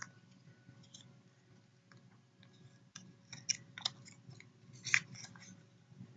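Faint rustles and clicks of a small paper doll-sized book being handled, with the loudest click about five seconds in.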